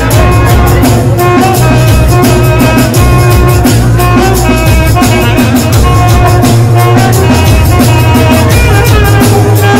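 Live band music: an alto saxophone playing a melody in held notes over electronic keyboard and a steady drum-and-bass backing beat.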